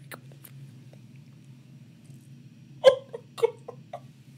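A woman breaking into sobs: a sudden loud catching sob about three seconds in, then two or three shorter hiccuping sobs.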